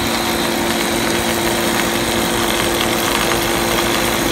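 Dog food production line machinery running steadily: electric motors and a belt-driven rotating perforated drum, giving an even mechanical din with a steady low hum and a thin high whine.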